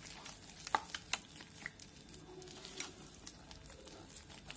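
Silicone spatula stirring thick wheat-flour and semolina batter in a plastic bowl: faint soft squelching with scattered light clicks.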